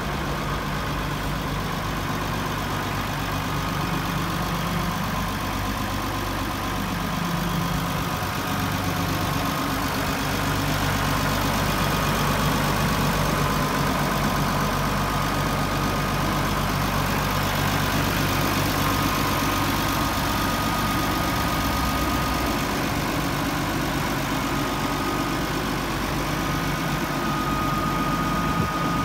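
Massey Ferguson 6190 tractor's six-cylinder diesel engine idling steadily.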